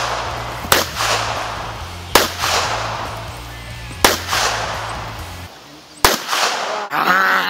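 Four pistol shots, about one and a half to two seconds apart, each trailing off in a long echo. They sit over background music with a steady bass. Near the end comes a short wavering pitched sound.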